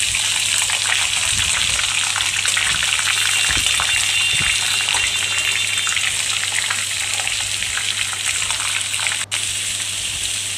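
Sliced onions sizzling and crackling as they are tipped into hot mustard oil with whole spices in a kadhai, a steady hiss with many small pops. The sound drops out for an instant near the end.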